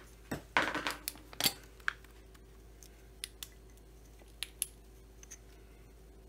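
Sharp clicks and light knocks of small tools and parts being handled on a workbench: a cluster in the first second and a half, then a few scattered ticks, over a faint steady hum.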